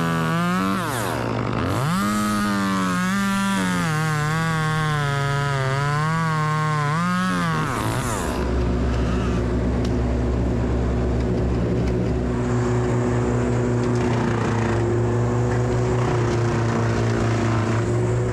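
Chainsaw running at high speed, its pitch wavering, with a sharp dip and recovery about a second in. It stops about eight seconds in, leaving a steady, lower engine hum.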